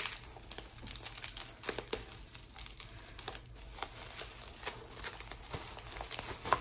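Plastic bubble wrap being pulled off and handled, crinkling and rustling with a run of irregular small crackles, a sharper crack at the start and another near the end.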